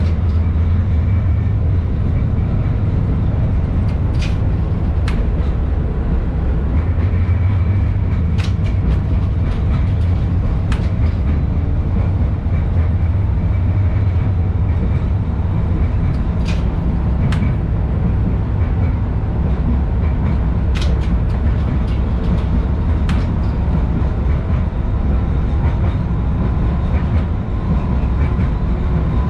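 An LVS-86K tram running along its track, heard from inside the passenger cabin: a steady low rumble of wheels on rails and running gear, with sharp clicks and knocks every few seconds. A faint steady whine comes in near the end.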